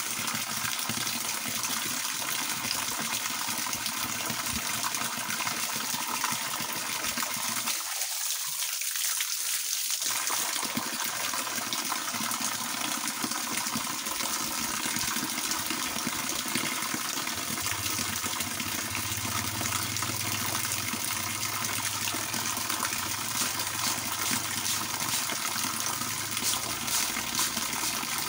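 A steady stream of water from a garden hose, pouring in an arc and splashing down onto a person washing beneath it.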